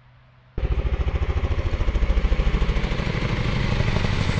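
An engine running with a rapid, even pulsing beat, starting suddenly about half a second in.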